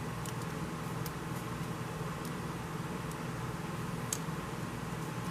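Steady low background hum, like a fan or appliance running in a small room, with a few faint light clicks.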